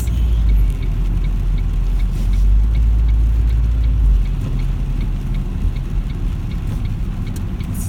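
Road and engine rumble inside a moving car's cabin on wet roads, a steady low drone under a faint hiss. The deepest rumble eases off about four seconds in.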